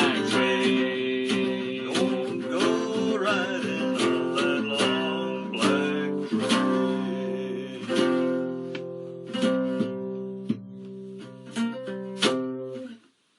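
Acoustic guitar strumming the closing chords of a country-gospel song, the strums thinning out and ringing down until the music stops shortly before the end.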